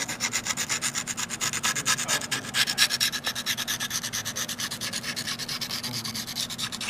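Honing stone rubbed quickly back and forth by hand along a steel Flare hockey skate blade at a 6-degree angle, about seven strokes a second, honing the freshly sharpened edge. A steady low hum sits beneath.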